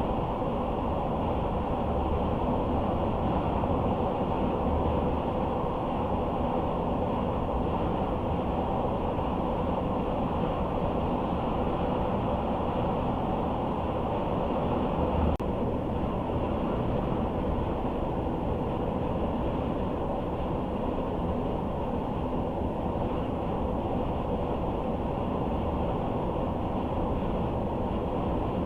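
Steady road noise of a car driving at speed: a constant tyre and engine rumble with a thin hiss above it. There is a single faint click about halfway through.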